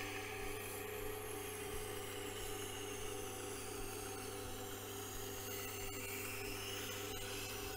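Tormek sharpening machine running with a steady motor hum, and an even hiss of a knife edge being worked on the turning wheel.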